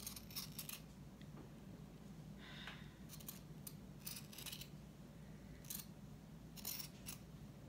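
Scissors snipping through felt: a few short, sharp cuts at irregular intervals.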